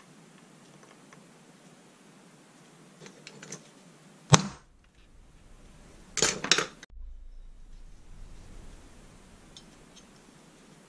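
Small metal hand tools being handled and set down on a workbench: a few light ticks, one sharp click about four seconds in, and a short clatter of clinks around six seconds.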